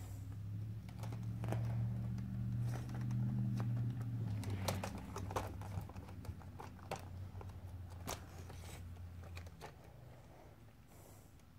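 Scattered light clicks and rustles of a kitten batting and pawing at a string toy on carpet, over a steady low hum that stops about nine and a half seconds in.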